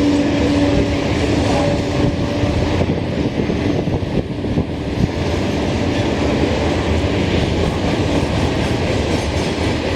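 Norfolk Southern train passing close by, its wheels rolling over the rails in a steady, loud rush of noise. A steady hum, likely from the locomotive, sounds over it and stops about two and a half seconds in.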